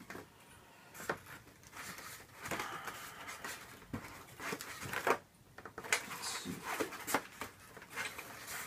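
Unpacking noise: irregular rustling, rubbing and light knocks as a foam model plane's fuselage is freed from masking tape and worked out of its molded foam packaging tray, with a short lull about five seconds in.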